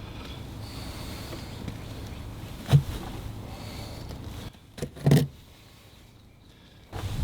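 Two dull thumps from the carpet being pulled out of the car's floor, about three and five seconds in, over a steady low hum that drops away about halfway.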